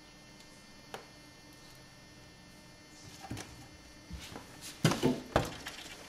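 A cat rummaging inside an open refrigerator, knocking against shelves and food packaging: a single click about a second in, then a run of knocks and rustles in the second half, loudest about five seconds in.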